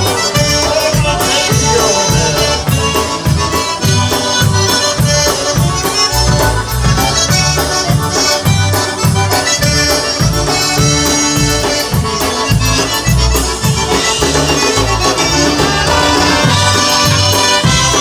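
Live polka band playing an instrumental passage: concertina and piano accordion carry the tune over electric bass and drum kit keeping a steady, even beat.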